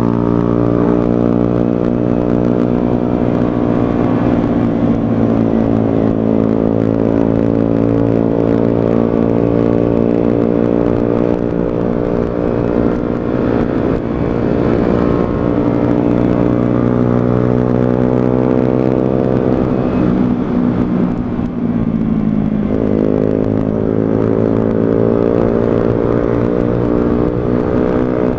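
125cc motorcycle engine running under way at a steady pitch. About twenty seconds in the revs drop briefly, then climb again as it pulls away.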